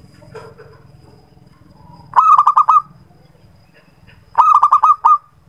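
Zebra dove (perkutut) calling: two loud bursts of quick staccato cooing notes, about five or six notes each, the first about two seconds in and the second near the end.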